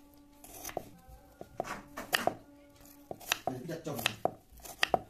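Kitchen knife slicing a raw potato on a wooden chopping board: a quick, irregular series of about fifteen sharp knocks as the blade cuts through and strikes the board.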